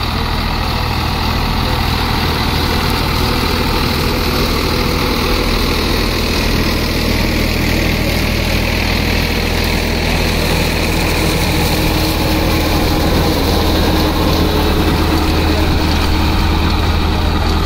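Sonalika DI 745 III tractor's three-cylinder diesel engine running steadily under load, driving a Shaktiman rotavator that churns the soil.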